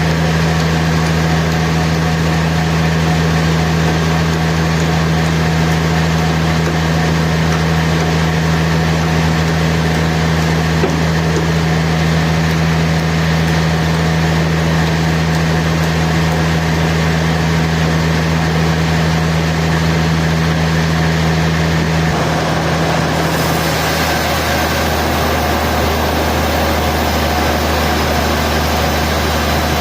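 Sawmill machinery running with a steady low hum. The sound shifts about 22 seconds in, with the hum changing and a rise in higher hiss.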